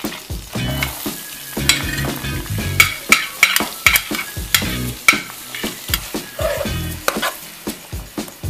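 Chopped white onion dropping into hot melted butter in a frying pan and sizzling, with a metal spoon repeatedly scraping and clicking as it pushes the onion off a plate and stirs it in the pan. The onion is being softened (acitronada) in the butter.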